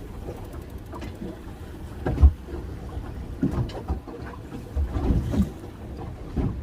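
Small fishing boat rocking on choppy water, with a low rumble of wind and water and irregular knocks and thumps, the loudest about two seconds in.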